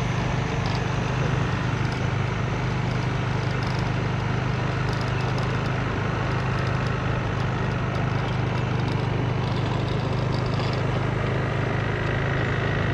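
Small motor scooter engine running steadily while being ridden, with rushing wind noise over it.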